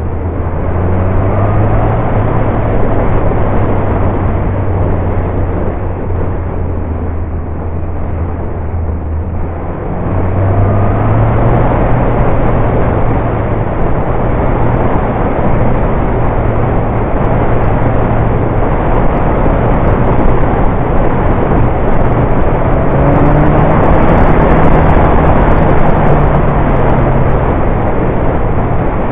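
Motorcycle engine running steadily under a heavy rush of wind on the bike-mounted camera's microphone. About ten seconds in the engine gets louder and its pitch rises.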